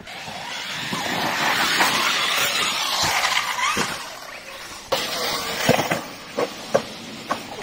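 Large brushless electric RC car driving hard, its tyres spinning and scrabbling on loose ground for about four seconds, followed by a few short sharp knocks.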